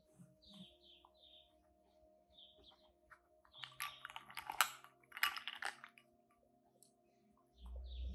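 Cocker spaniel crunching ice, a quick run of crisp cracking sounds starting about three and a half seconds in and lasting about two seconds. Birds chirp faintly before it.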